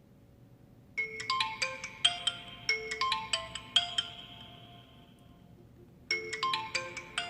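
OPPO phone's default ringtone: a short melody of quick, sharply struck notes starting about a second in and dying away, then the same phrase starting over about six seconds in as the ringtone loops.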